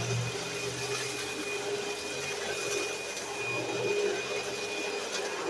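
Eureka Lightspeed bagless upright vacuum cleaner running steadily, its motor giving an even rush of air with a high whine, sounding healthy.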